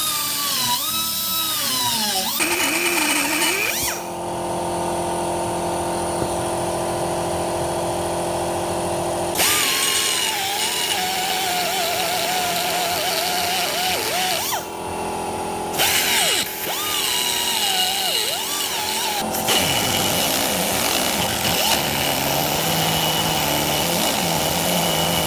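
Handheld rotary tool grinding inside a Mercedes W202 brake caliper's piston bore, cutting out a seized piston; the motor's whine wavers up and down in pitch as the bit bites and bogs under load.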